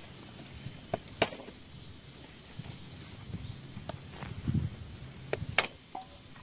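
Dry sticks and twigs being handled and snapped: a few sharp snaps and knocks, the loudest near the end, with some rustling. A short high chirp repeats about every two and a half seconds behind it.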